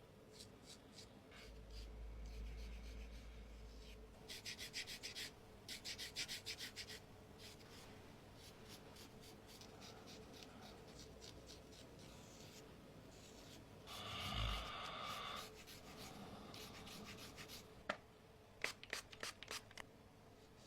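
Faint hands rubbing and scratching over skin and hair in a massage, in short bursts of quick strokes, with a few sharp clicks near the end.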